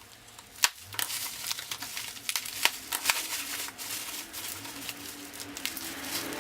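Bubble wrap being handled and unwrapped: irregular plastic crinkling and rustling with sharp crackles scattered through.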